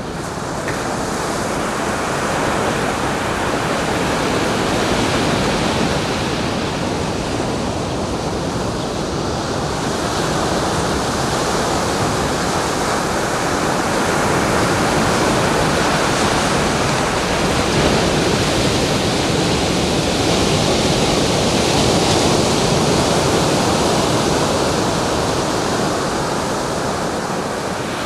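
Ocean surf breaking and washing onto a beach: a steady rush of water that swells and eases slowly over several seconds.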